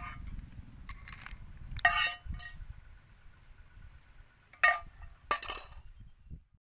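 Four sharp clinks on a metal serving bowl heaped with cooked snails in their shells, the first two ringing briefly.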